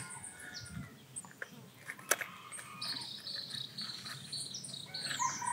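Quiet outdoor ambience with high-pitched wildlife chirping, a series of short calls in the second half ending in a falling chirp. There is one sharp click about two seconds in.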